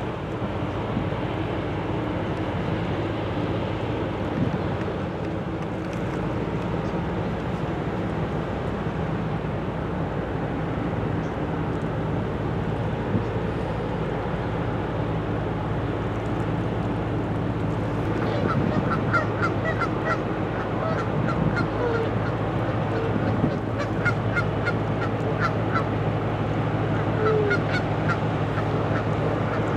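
Low, steady engine drone from a passing container ship and its tug. From a little past halfway, birds call over it in quick runs of short honking calls.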